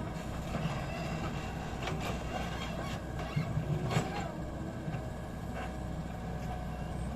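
Heavy construction machinery's diesel engine running steadily, with a few knocks and clanks, the loudest about four seconds in.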